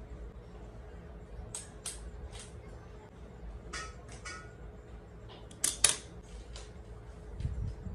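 Scattered clicks and taps of a DSLR camera on a tripod being handled and adjusted, with two sharp, louder clicks about two-thirds of the way in. A faint steady hum lies underneath.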